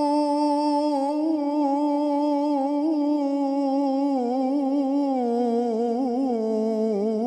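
A man singing an unaccompanied ibtihal, an Islamic devotional chant, holding one long note. The note starts steady, then breaks into wavering melismatic ornaments about halfway through and slides lower near the end.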